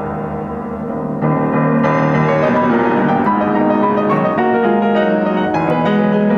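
Solo grand piano playing, a soft passage that grows louder about a second in, with higher notes joining shortly after.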